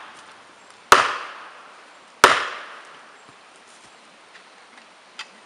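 Two heavy axe blows on plastic felling wedges in a tree's back cut, about a second and a half apart, each a sharp crack that rings out and fades over most of a second. A faint small knock follows near the end.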